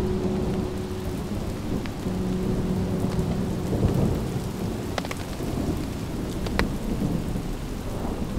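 Thunderstorm: steady rain with low rolling thunder, and a few sharp clicks about five and six and a half seconds in.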